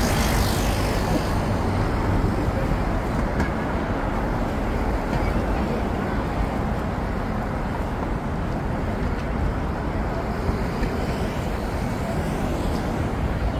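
City street ambience: steady road traffic noise from passing buses and cars, with a motorcycle passing close near the start. The traffic eases a little as it goes on, with a murmur of passers-by's voices.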